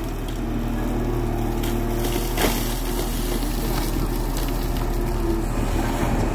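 JCB long-reach excavator's diesel engine running steadily while the boom and bucket work, with one sharp clank about two and a half seconds in.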